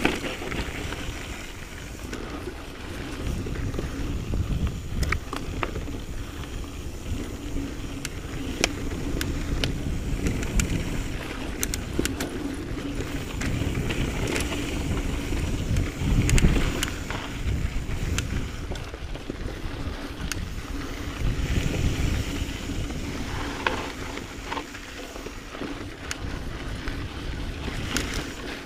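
Mountain bike rolling over dirt and rocky singletrack: a continuous rumble of the tyres on the trail mixed with wind on the microphone, with sharp clicks and rattles from the bike now and then and a louder jolt about halfway through.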